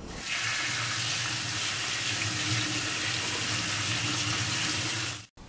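Kitchen tap running a steady stream onto lettuce leaves in a plastic salad-spinner basket over a stainless steel sink, the leaves being rinsed; the water starts just after the beginning and cuts off abruptly near the end.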